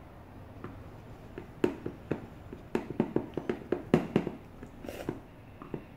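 Wooden stick stirring slime mixture in a white ceramic bowl, with a run of irregular knocks and taps against the bowl, densest around three to four seconds in.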